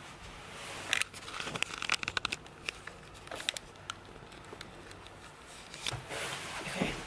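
Rustling and crackling of a camouflage uniform jacket as it is handled and adjusted, with a quick run of clicks and crinkles between about one and two and a half seconds in, and a longer rustle near the end.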